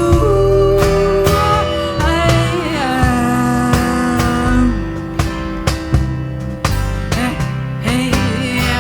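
A rock band plays an instrumental break: a guitar holds and bends long notes over bass and drums, with regular drum hits throughout.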